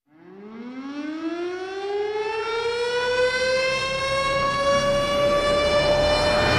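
Siren winding up from a low pitch to a steady high wail, growing louder as it rises. It is a recorded siren effect opening a song.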